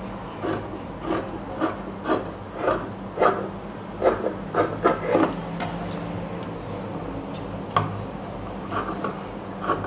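Tailoring scissors snipping through two layers of folded cloth on a wooden table, a crisp crunch of the blades about every half second. The cutting slows to a few scattered snips after about five seconds.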